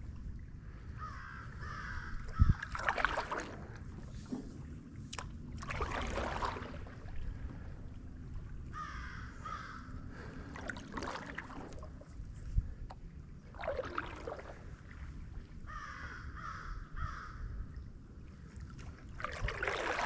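A crow cawing in three bouts of several calls each, over the swish of paddle strokes in the water every few seconds from a stand-up paddleboard. There is a single sharp thump about two seconds in.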